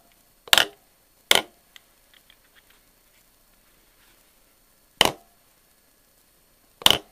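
Sharp taps of a soft-faced hammer on an aluminum block clamped in a milling-machine vise, seating the part down onto the parallels. There are two quick taps in the first second and a half, then one about five seconds in and one near the end.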